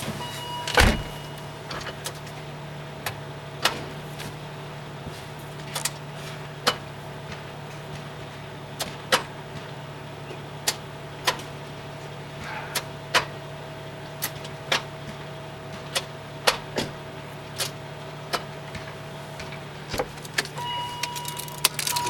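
BMW E39 M5 six-speed manual gear lever, fitted with an E60 short shift lever and weighted knob, being moved through the gates by hand: a string of sharp clicks and clunks, roughly one a second, as the lever snaps into each gear. A single heavy thump comes about a second in, over a steady low hum.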